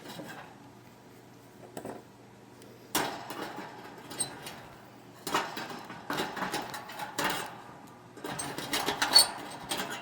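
Sheet-metal clicks, knocks and scrapes as the old dryer heating element is worked loose from its metal housing by hand. The clatter comes in three bunches after a quiet start, over a faint steady hum.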